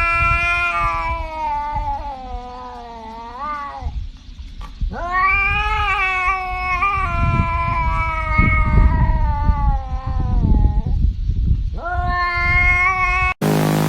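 Domestic cat yowling in long, drawn-out meows. There are three calls: one of about four seconds that bends in pitch at its end, a longer one of about six seconds, and a short one near the end. A low rumbling noise runs underneath.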